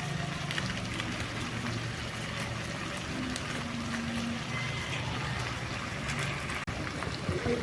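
Chicken curry cooking in a pan, a steady sizzle and bubble with a low hum beneath it.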